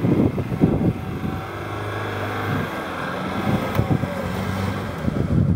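A Land Rover's engine running steadily, with several knocks in the first second or so.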